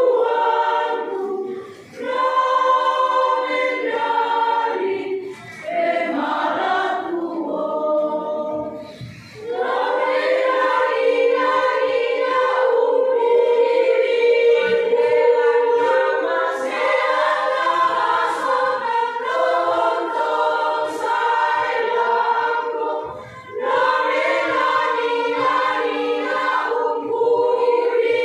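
Women's church choir singing a Christmas song together in long phrases, with short breaks between phrases.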